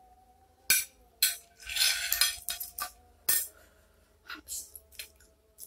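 Metal spoon and fork clinking and scraping on a ceramic plate: several sharp clinks, with a busier stretch of scraping about two seconds in. A faint steady tone runs underneath.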